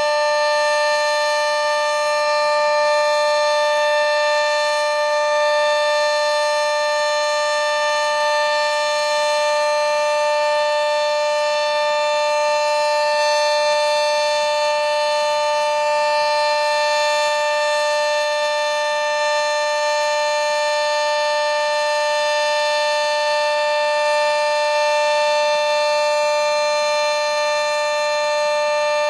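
Sentry 40V2T two-tone outdoor warning siren sounding at full speed in a siren test, holding two steady pitches at once with no rise or fall.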